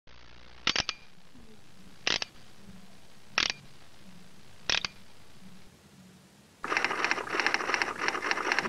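Four sharp mechanical double clicks, evenly spaced about a second and a half apart, over a faint steady hum; then, a little before the end, a dense crackling rattle sets in and runs on.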